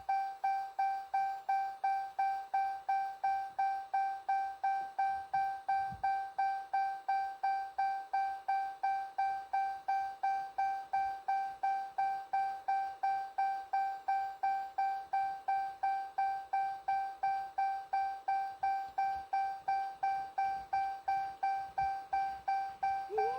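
Car door-ajar warning chime: one steady electronic tone repeating evenly, nearly three dings a second.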